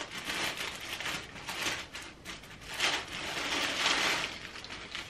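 Rustling and crinkling of a garment being handled and unfolded, in several irregular bursts, the loudest stretch a little before four seconds in.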